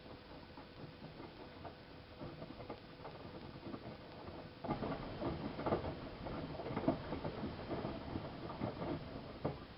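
Miele Softtronic W3657 washing machine drum turning in the wash cycle, with wet laundry tumbling and water sloshing in irregular soft patters. It gets louder about halfway in and stops shortly before the end.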